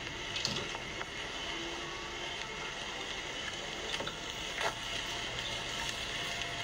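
Outdoor street background noise, a steady hiss with a few faint clicks and knocks.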